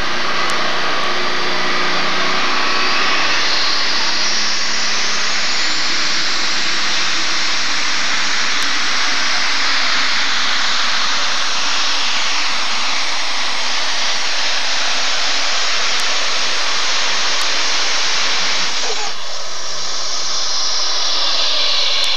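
Super stock pulling tractor's engine running flat out while dragging the weight-transfer sled, a high turbo whine rising over the first few seconds and holding. About nineteen seconds in, the engine cuts back sharply as the run ends.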